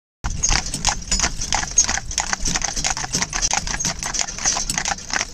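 Hooves of two Friesian horses trotting on a paved road, a fast, uneven clatter of overlapping hoofbeats.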